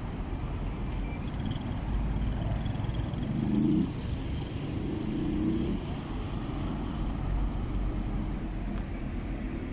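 Street traffic: a steady low rumble of cars and a motor scooter passing, with a louder vehicle going by about three and a half seconds in.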